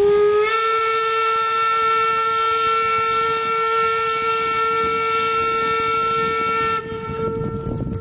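Amemiya No. 21 narrow-gauge steam locomotive's whistle blowing one long blast. Its pitch steps up slightly about half a second in as it comes to full strength, and it cuts back sharply to a faint tone about seven seconds in.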